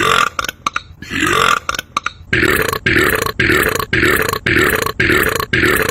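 A man belching loudly: two long burps, then a rapid run of short, evenly spaced burps, about two a second.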